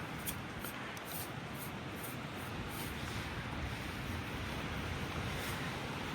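Steady rushing noise of an ATV on the move: wind on the microphone over the engine and tyres, with a low rumble that builds about halfway through and a few faint high ticks early on.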